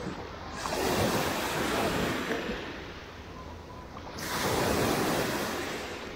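Small Black Sea waves washing up on a sandy beach, two surges of surf, one about half a second in and one near four seconds, each rising quickly and then fading.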